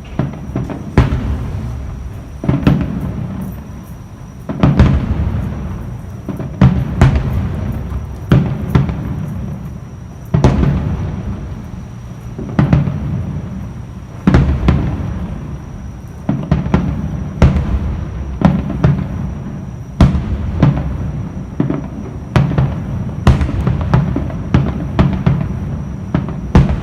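Aerial fireworks going off one after another: a sharp bang every second or two, each followed by a rumble that dies away.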